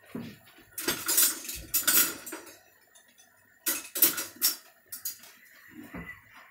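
Dishes and metal utensils clattering and clinking as they are handled on a kitchen counter. There are two spells of clatter, the first about a second in and the second near four seconds, then a few lighter clinks.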